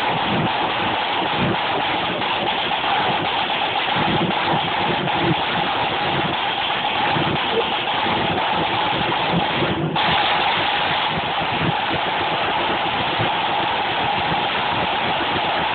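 Flute band drum corps playing a drum solo: snare drums in a dense, continuous wash of rolls over irregular bass drum beats, loud and unbroken except for a momentary dropout about ten seconds in.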